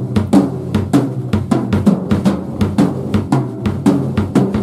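Rock band's drum kit playing a fast steady beat, snare and bass drum hits about four to five a second, over sustained low bass notes.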